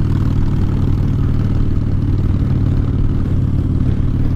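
2009 Harley-Davidson Dyna Fat Bob's V-twin engine running steadily through Vance & Hines Short Shots exhaust, a deep even rumble with no revving.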